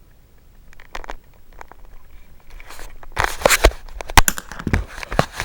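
Plastic being handled: crinkling and clattering, a few clicks at first, then a dense, louder run of crackles and knocks over the second half.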